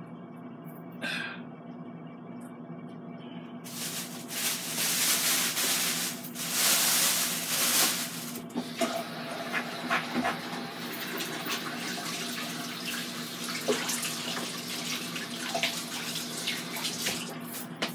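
Kitchen faucet turned on about four seconds in, water running hard for a few seconds and then more gently, with small clicks and knocks of things being handled at the sink.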